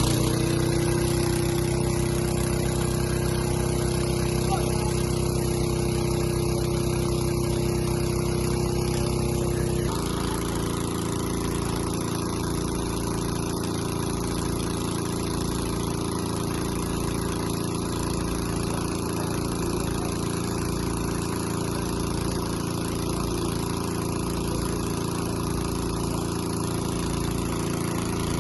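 An engine running steadily. About ten seconds in, its sound changes abruptly, and a slow, even pulsing of about one beat a second sets in.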